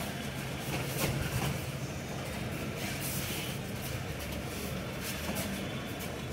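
Steady low hum of an indoor sports hall's background noise, with one sharp knock about a second in.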